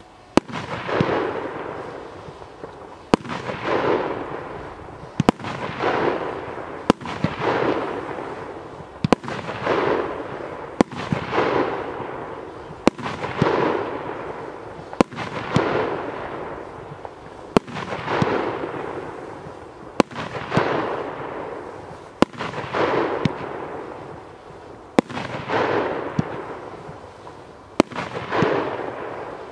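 Evolution Fireworks Luna 3, a category 4 firework, firing a sharp shot about every two seconds. Each shot is followed by a second or two of crackling as its stars break and fade.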